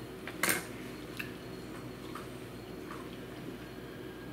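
A man chewing a mouthful of steak: a short breathy noise about half a second in, then a few faint mouth clicks, over a low steady hum.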